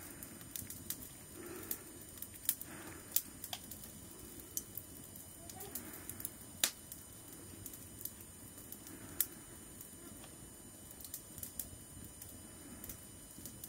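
Wood fire crackling under a cooking pot: irregular sharp pops and snaps over a low steady hiss.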